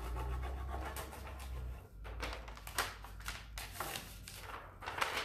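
Plastic transfer applicator tool rubbed over a decor transfer on a deeply textured wood sign in short, uneven scraping strokes, pressing the transfer down; a low hum fills the first two seconds.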